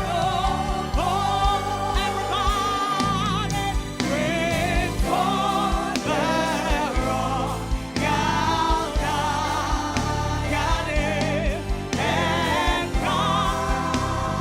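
Gospel worship music: singing with wavering, ornamented held notes over a band with a steady bass beat.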